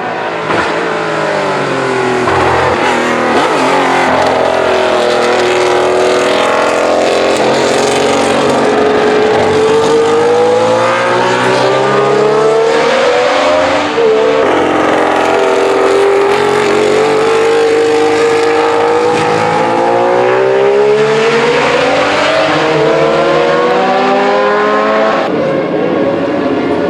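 Alfa Romeo 33 SP 12 race car's flat-12 engine running hard on track, its note climbing and falling again and again as it revs through the gears. The note breaks off sharply about halfway through and again near the end.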